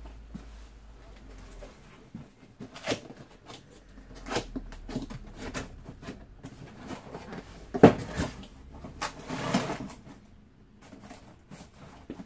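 Cardboard packaging being opened and handled: scattered knocks and rustles, with a sharp knock about eight seconds in and a longer rustle just after it.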